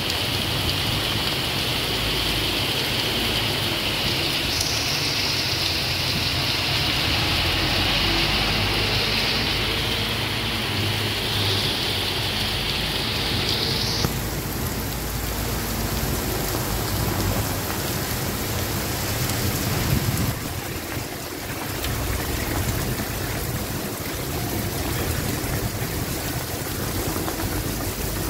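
Heavy rain pouring onto pavement and leaves, a dense, steady hiss. About halfway through the hiss gets less sharp.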